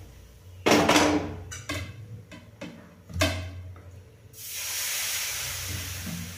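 A few knocks and clatters as the dosa pan is set back on the gas burner, then from about four seconds in a steady hiss as dosa batter hits the hot pan and sizzles.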